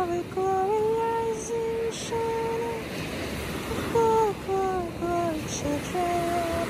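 A voice humming a slow tune without words in long held notes, over small waves washing onto a sandy beach.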